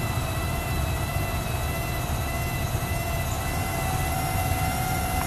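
Electric corner jacks of a 2013 Lance 865 truck camper running together to raise the camper: a steady motor whine with a clear high tone, creeping slightly up in pitch near the end.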